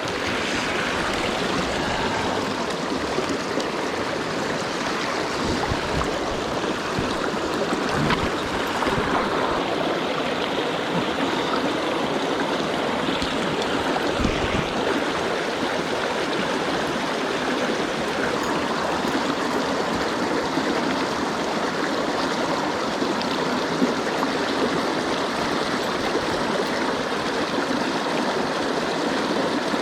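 A mountain stream's water rushing steadily over rocks, with a faint low thump about fourteen seconds in.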